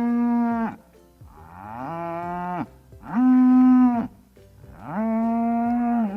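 Cow mooing four times, each call about a second long, rising, holding a steady pitch, then falling away.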